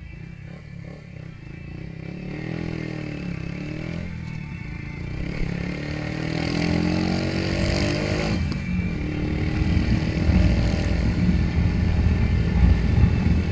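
Haojue Chopper Road 150 motorcycle's single-cylinder engine accelerating, its pitch rising with a short break about eight and a half seconds in, while wind and road noise grow louder toward the end.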